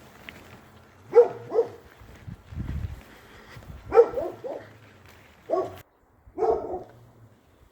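A dog barking in short bursts: a pair of barks, then a quick run of three, then two more barks near the end. A brief low rumble comes between the first two groups.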